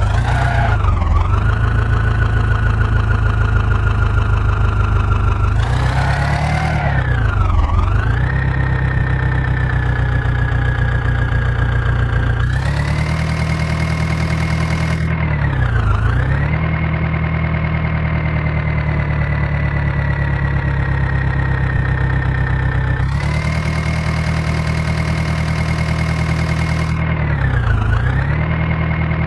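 Diesel engine running at steady high revs, its pitch sagging briefly and recovering four times as it takes a load.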